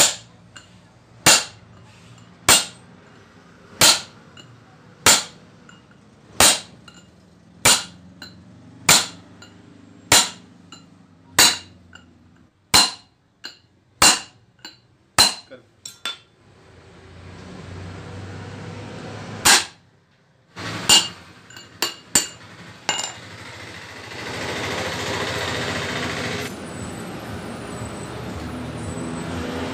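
Hammer blows on a steel drift driving the ball bearing in a Shaktiman rotavator's gearbox housing: sharp metal-on-metal strikes, about a dozen evenly spaced roughly once a second, then one more hard blow and a few light clinks. A steady noise comes up in the last few seconds.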